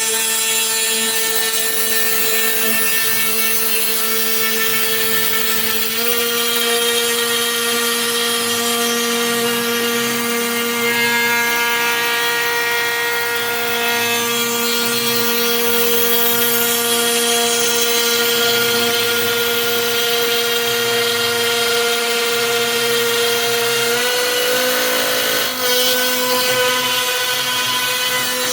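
CNC router spindle running with a quarter-inch bit cutting through a Sitka spruce guitar top: a steady whine over the hiss of the cut. The whine steps slightly higher in pitch about 6 seconds in and again near the end, with a brief dip shortly after.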